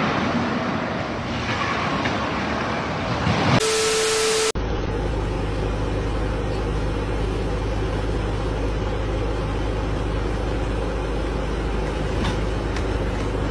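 Street and traffic noise for the first few seconds. Then about a second of loud hiss with a steady tone. Then the steady low drone of a forklift's engine running as it holds up a double stack of loaded pallets.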